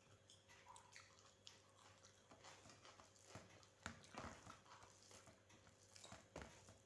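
Faint chewing and wet mouth clicks from someone eating soft rice and mashed vegetables, with a few louder clicks about four seconds in and again near the end.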